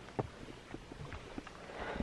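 Footsteps of a person walking, a series of short, uneven knocks about every half second.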